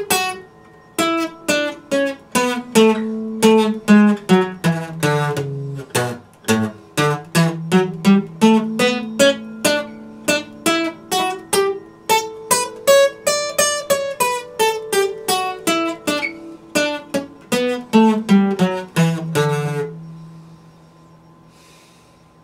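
Epiphone acoustic guitar played solo, a melody picked note by note, about two or three notes a second, over ringing bass notes. The playing stops about twenty seconds in and the last notes fade out.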